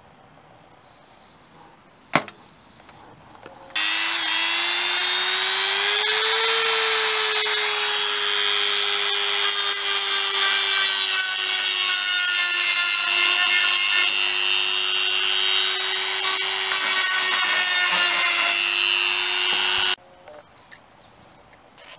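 Small electric drill whining steadily as its bit cuts into a steel motorcycle frame, drilling out a broken bolt so the hole can be tapped for an M6 helicoil. It starts about four seconds in, picks up speed briefly, has a grittier cutting sound in the middle, and cuts off abruptly near the end.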